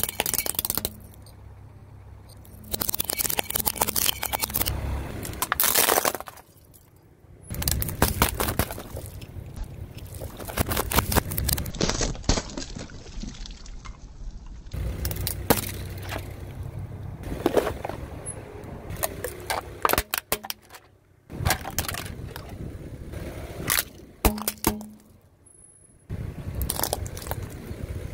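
A car tyre rolling over brittle plastic objects and crushing them, in a run of short cuts: sharp cracking, snapping and crunching of plastic, and squashed drink bottles giving way, with a few quieter stretches between.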